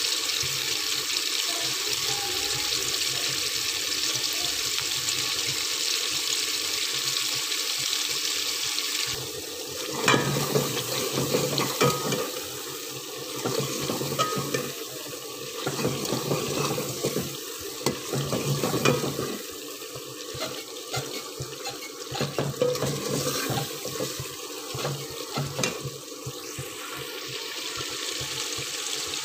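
Tomato and onion masala sizzling in ghee in a metal pot, a steady hiss. From about ten seconds in, a metal ladle stirs and scrapes against the pot with repeated knocks for several seconds, and the sizzling then carries on more quietly.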